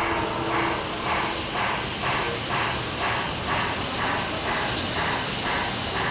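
Large-scale model train, a New York Central diesel locomotive pulling boxcars, running along an elevated outdoor track, with a regular beat about twice a second.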